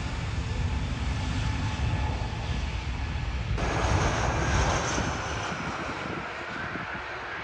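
Airbus A330neo's twin Rolls-Royce Trent 7000 turbofans running at low power on the ground, a steady rumble. About halfway through, the sound turns abruptly brighter, with a hissing rush and a faint high whine that swell and then ease off.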